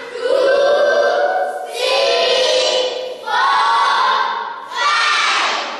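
A class of children singing together in unison, in four phrases of about a second and a half each with short breaks between them.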